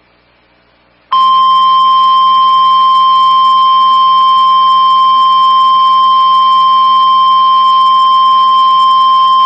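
NOAA Weather Radio warning alarm tone, the 1050 Hz EAS attention signal: one loud, steady, unbroken beep. It starts about a second in after a short pause and holds for about nine seconds. It is the alert that comes before a National Weather Service warning message is read out.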